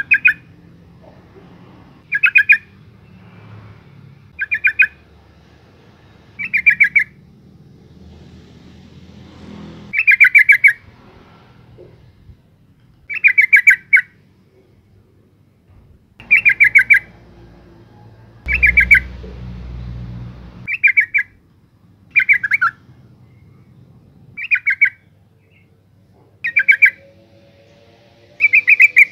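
Yellow-vented bulbul (trucukan) calling: a short bubbly burst of quick notes, repeated about every two seconds, around thirteen times. The uploader gives it as a female calling to males.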